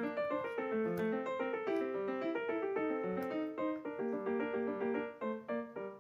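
Background piano music: a steady stream of quick notes.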